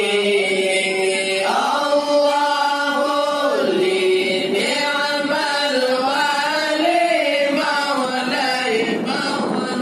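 A men's group chanting Acehnese dike Maulid zikir in unison, long held notes that bend and waver, with a new phrase starting about a second and a half in.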